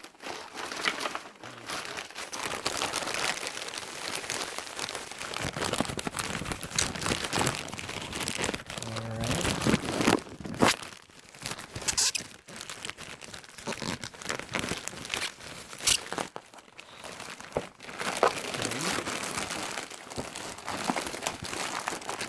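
Thick plastic packaging and bubble wrap crinkling and rustling as they are handled and pulled apart by hand, dotted with sharp crackles and clicks.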